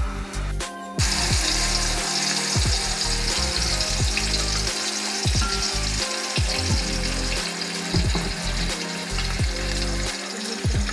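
Chicken curry masala sizzling in a clay pot as it is stirred with a wooden spoon; the sizzle comes in about a second in. Background music with a bass line runs underneath.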